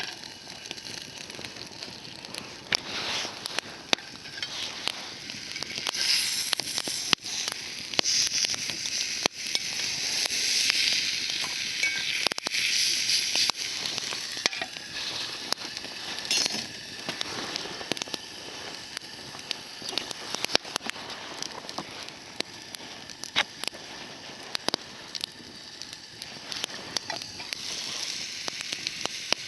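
Meat sizzling over a wood campfire, with sharp pops and crackles throughout. The sizzle swells louder for several seconds in the middle.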